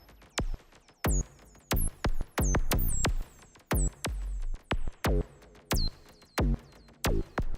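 Electronic music: choppy, stop-start synthesizer hits with deep bass thumps, some with short tones that drop sharply in pitch, broken by brief silent gaps in an irregular rhythm.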